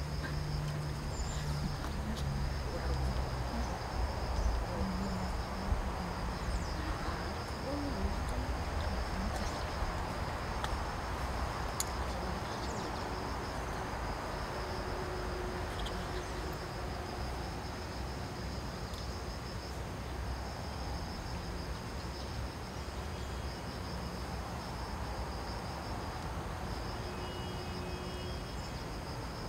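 Outdoor ambience: insects chirring steadily in a high, even trill over a low rumble, with a broader hiss that swells and fades about halfway through.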